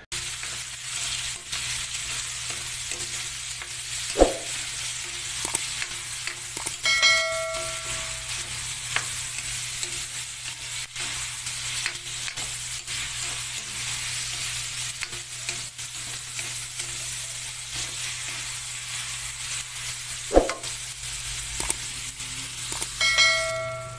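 Garlic, onion, ginger, chili and carrots sizzling as they are sautéed in oil in a pan, stirred with a utensil scraping the pan. Two sharp knocks and, twice, a short metallic ring as the utensil strikes the pan.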